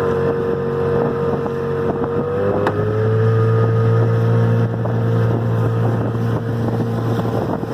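Outboard motor of a small fishing boat running steadily, rising slightly in pitch about two and a half seconds in.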